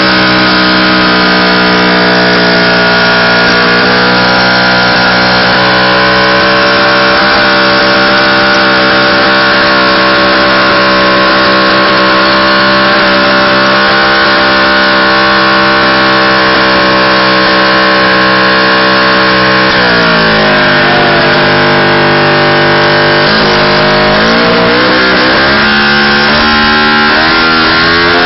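Motorcycle engine running loud and held at steady high revs during a burnout, the rear tyre spinning in the dirt. About twenty seconds in the revs drop, then climb again and rise and fall.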